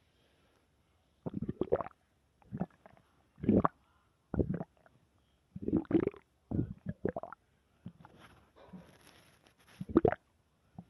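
Human stomach growling: a run of irregular gurgles and rumbles, some short and sharp, then a quieter drawn-out rumble near the end and one last loud gurgle.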